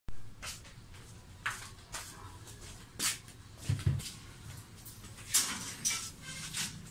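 Close handling noises as fingers work the wire leads of a small electrolytic capacitor: scattered short rustles and light clicks, with a dull bump a little before the middle.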